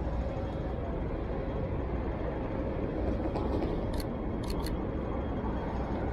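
Steady city street traffic rumble, with three quick shutter clicks from a Sony A6400 mirrorless camera about four seconds in: one, then two close together.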